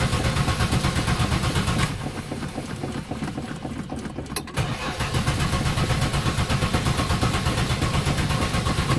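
Starter cranking the 1973 Plymouth Duster's 225 slant-six engine without it catching: a rapid, even chugging that softens about two seconds in, stops briefly near the middle, then cranks on again. The engine has sat unstarted for a couple of months and is slow to fire, short of fuel.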